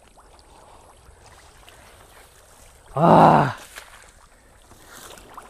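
A man wading through shallow swamp water and wet weeds, with faint sloshing. About three seconds in he gives one loud, short cry of "ah!"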